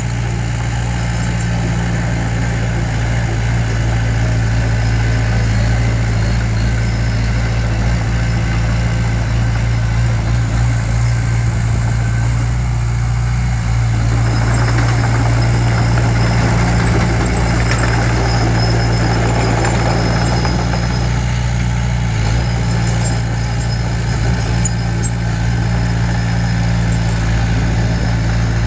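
Diesel engine of heavy earthmoving equipment running steadily at a low, even hum, with a rougher, noisier stretch about halfway through.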